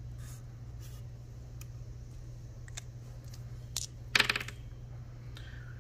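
Two small plastic dice tossed from the hand onto a paper sheet on a table: a short, loud clatter about four seconds in, after a few faint clicks.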